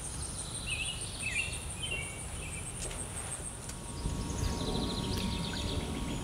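Summer outdoor ambience: an insect keeps up a steady, high, pulsing buzz while songbirds call, with short chirps about a second in and a quick trill around five seconds in. A low rumbling noise grows louder about four seconds in.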